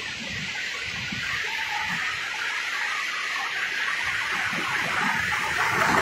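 Shallow seawater washing at the shoreline: a steady hiss of small waves and swash that grows louder toward the end.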